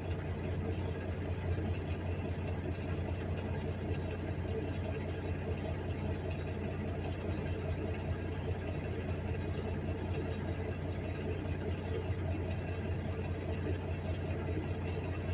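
Car engine idling steadily: an even, low hum that does not change.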